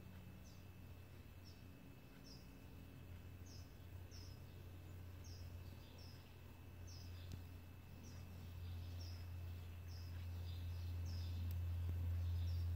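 A bird chirping over and over, short high chirps about twice a second, over a low steady hum that grows louder toward the end.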